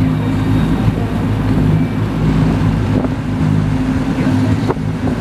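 Amphibious duck boat's engine running steadily while under way on the water, a constant low drone, with wind buffeting the microphone.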